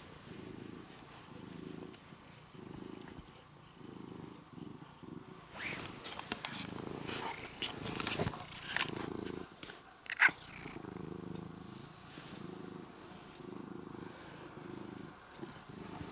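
House cat purring close up in a steady in-and-out rhythm as it rubs against a person's leg. Rustling and a few sharp clicks come through the middle, the loudest about ten seconds in.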